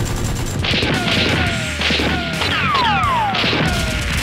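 Gunfire sound effects over action background music: a string of shots mixed with several falling whines, starting about a second in.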